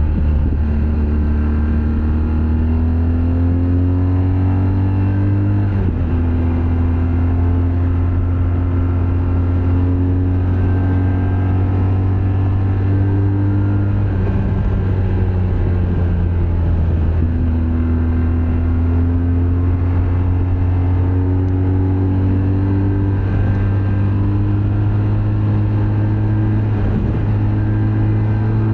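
Motorcycle engine pulling under acceleration while riding. Its pitch climbs and drops back at each gear change, about four times.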